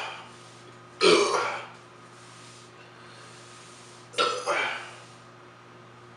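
A man burping twice, loudly, after chugging a bottle of strong ale: once about a second in and again about four seconds in.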